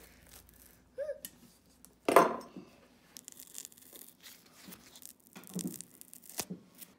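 Old rubber half sole being peeled off a shoe's leather sole by hand, the hot-air-softened glue letting go in a crackling tear. There is one loud rip about two seconds in, then a run of short crackly rips.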